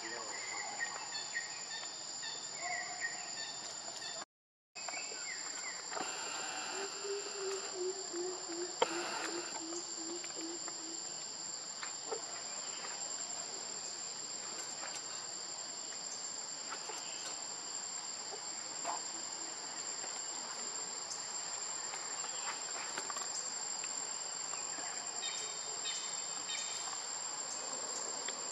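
Steady high-pitched drone of insects in forest, a continuous buzz with a shrill tone above it. The sound cuts out briefly about four seconds in, and a short run of quick low notes comes about seven seconds in.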